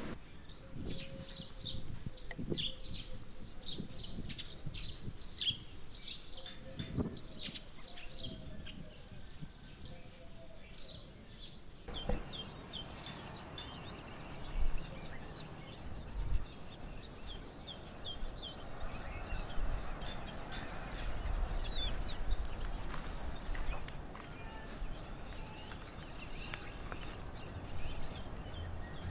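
Small birds chirping outdoors: many short, high chirps scattered throughout, with a few low thumps partway through.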